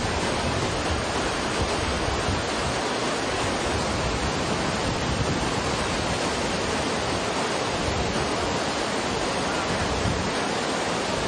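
Waterfall torrent of white water rushing steadily over and between boulders.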